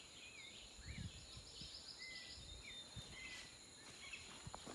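Faint outdoor ambience: scattered short whistled bird calls and a quick trill over a steady high insect drone, with a few soft bumps from the phone being moved.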